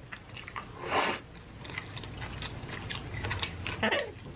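Close-miked eating of noodles: wet chewing with many small mouth clicks and a louder slurp about a second in. A short falling vocal murmur comes near the end.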